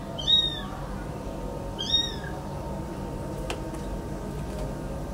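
Kitten mewing twice, short high-pitched mews about half a second and two seconds in.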